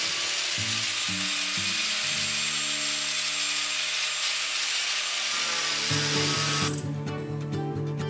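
Angle grinder cutting into a metal panel edge with an even, hissing grind, throwing sparks. The grind stops abruptly about seven seconds in.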